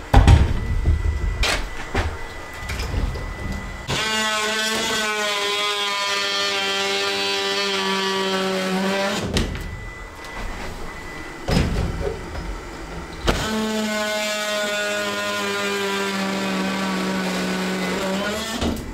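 Oscillating multi-tool cutting through wooden 2x3 wall studs, running in two spells of about five seconds each with a steady, high, even tone. Knocks and thumps come before and between the two cuts.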